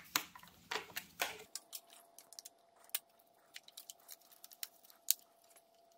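Scattered light clicks and taps from handling spark plug wires and their plastic routing clips while the wires are tucked into place.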